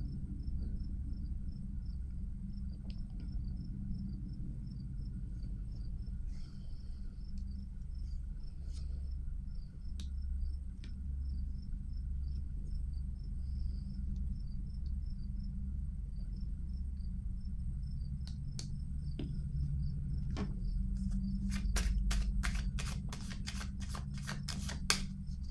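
A cricket chirping in short, evenly spaced high pulses over a steady low room hum. Near the end comes a quick run of sharp clicks.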